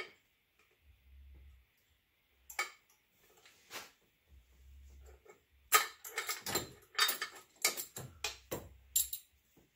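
Irregular metallic clicks and knocks of hand tools and parts being handled on an engine, a few at first and then a busy cluster from about six seconds in, with two short low hums in between.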